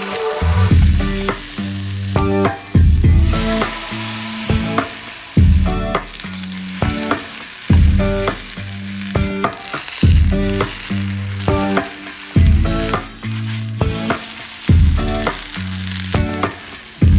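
Vegetarian Taiwanese oyster omelet frying and sizzling in a pan, over background music with a steady beat and a repeating bass line.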